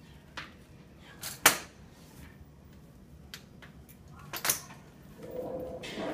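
A front-wheeled walker being lifted and set down on a hard floor as a child steps with it. Its legs and wheels knock down in short clacks, with two loud double knocks about three seconds apart. A low voice-like hum starts near the end.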